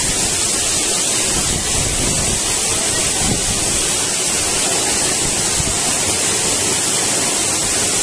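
Waterfall pouring down onto rock: a loud, steady rush of falling water and spray.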